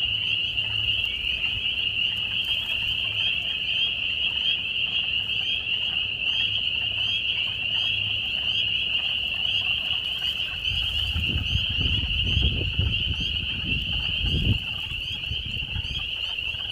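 A dense chorus of frogs calling, a steady high-pitched trill of many overlapping calls. A low rumble joins in for a few seconds past the middle.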